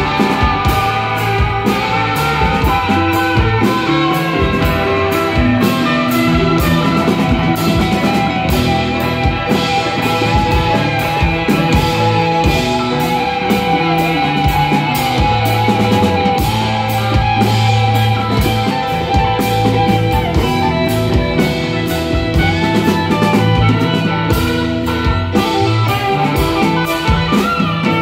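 Live rock band playing an instrumental passage: electric guitar over bass guitar and drum kit, with a steady drum beat throughout.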